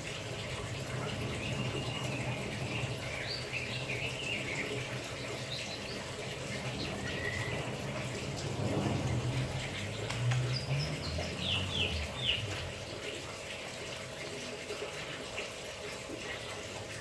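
White-rumped shama giving short, high chirping phrases in bursts over the steady hiss of running water as it bathes in its bathing cage.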